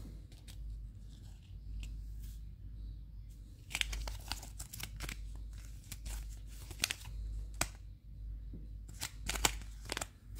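Plastic packet of fishing snaps being handled and turned over in the hands, crinkling and crackling in short bursts from about four seconds in and again near the end.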